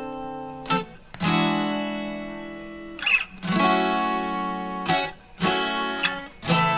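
Recorded music, an instrumental guitar passage between sung lines, played back through a Bluetooth speaker. It is a few strummed acoustic guitar chords, each left to ring and fade before the next.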